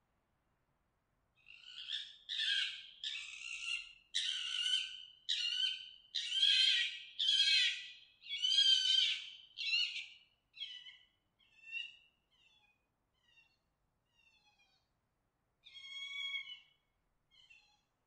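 Red fox mating call: a run of high-pitched calls about one a second, then shorter, fainter calls, with one stronger call near the end.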